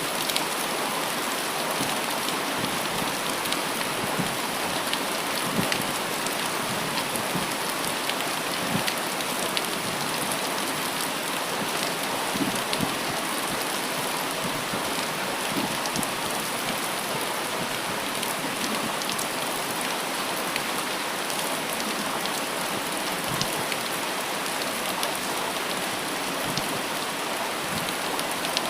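Steady rain falling, a constant hiss with many individual drops tapping and splashing close by.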